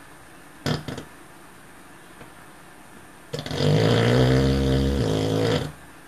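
American cocker spaniel snoring in his sleep: a short snort about a second in, then one long, loud snore lasting over two seconds.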